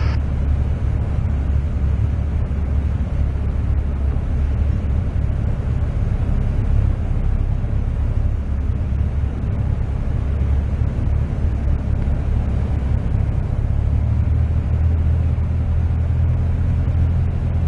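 Cessna 172's single piston engine and propeller droning steadily, heard inside the cockpit on final approach. The pitch of the drone shifts slightly about fourteen seconds in.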